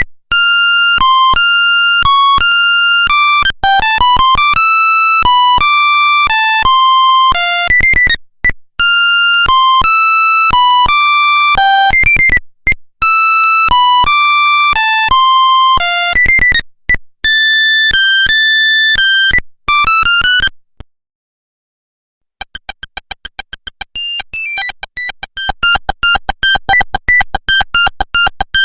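Nokia 1100 monophonic ringtones. A beeping melody of single stepped notes repeats its phrase several times and stops about 21 seconds in; after a pause of about a second, another ringtone starts as a fast run of rapid beeps.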